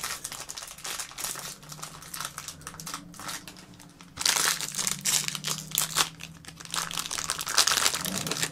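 Plastic packaging of a Poopsie Slime Surprise toy crinkling as it is handled and opened, in dense irregular crackles that get louder about four seconds in and again near the end.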